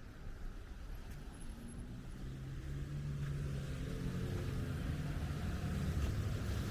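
A motor vehicle's engine running as it approaches along the street, growing steadily louder from about a third of the way in.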